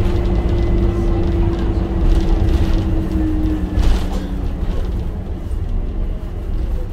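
Optare Solo bus's diesel engine and drivetrain heard from inside the saloon: a steady low rumble with a whine that falls in pitch about three to four seconds in, after which the engine noise eases off as the bus slows.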